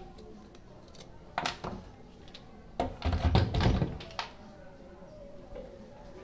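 Handling knocks on a plywood board: a few light clicks of screws, then a cluster of knocks with a dull thunk about three seconds in as the cordless drill and the wooden block are set down.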